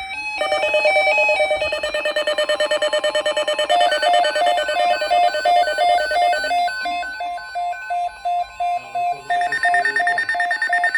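Electronic emergency alert tone sounding ahead of a tornado watch message. It opens with a few short stepped beeps, then becomes a rapid pulsing beep in several pitches that changes about two-thirds of the way through.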